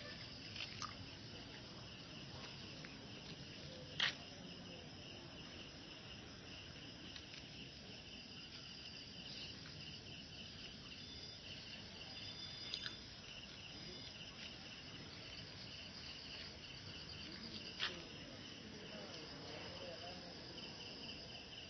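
Steady chorus of crickets chirping in a high, pulsing trill. A few sharp clicks cut through it, the loudest about four seconds in.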